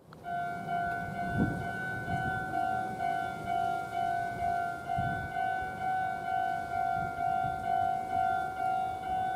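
Japanese railway level-crossing warning bell ringing, a clanging two-tone ding repeating about twice a second. A brief low rumble comes through about a second and a half in and again around five seconds.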